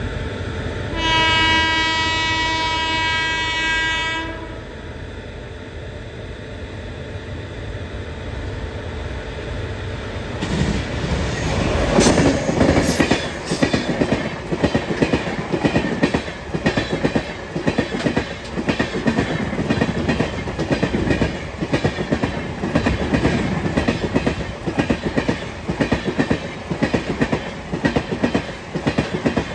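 A Rajdhani Express sounds its electric locomotive's horn, one chord held for about three seconds near the start. The train's rumble then builds to a loud peak as the locomotive passes, and the LHB coaches follow with a steady, rhythmic clickety-clack of wheels over rail joints.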